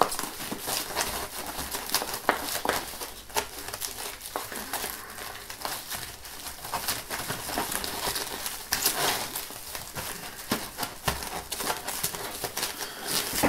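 Plastic stretch wrap crinkling and crackling in an irregular run as it is pulled off the roll and wound around a bundle.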